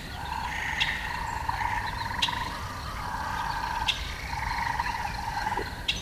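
Eastern gray tree frogs calling: repeated pulsed trills, each half a second to a second long, overlapping like a small chorus, with a few short sharp chirps over the top.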